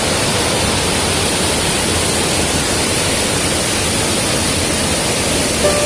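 Waterfall roaring steadily: a loud, even rush of falling water. A few music notes come in near the end.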